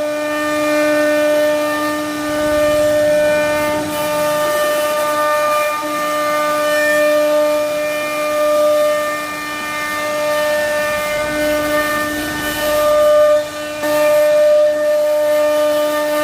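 CNC router spindle running at a constant speed while carving wood, a steady high whine with overtones over a faint cutting hiss.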